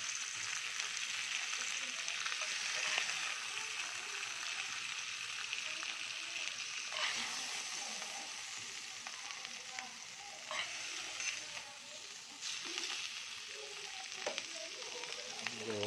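Bacon-wrapped beef tenderloin steaks sizzling in a hot cast-iron grill pan, a steady hiss that eases off a little about halfway through. A few sharp clicks come in the second half as the steaks are lifted out with metal tongs.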